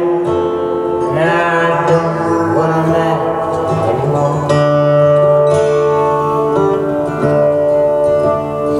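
Music playing through a Google Home Max smart speaker turned up to maximum volume, loud enough that the presenter calls it pretty loud: long held notes and chords that change every second or two.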